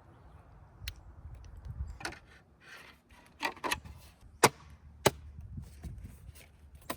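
Small hand tools and steering-wheel parts being handled: a series of separate sharp clicks and knocks, the loudest about four and a half seconds in.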